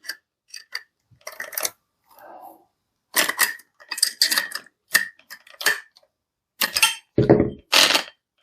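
Irregular metal clicks and clinks from the Parkside Performance PPWSFA 20-LI A1 angle grinder's disc fittings being tightened with its spanner tool and handled, with a couple of louder knocks near the end.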